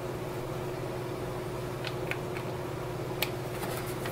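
Small plastic clicks and handling of a USB cable plug being pushed into the port of a palm-sized mobile printing hub: a few soft ticks about two seconds in and one sharper click about three seconds in, over a steady background hum.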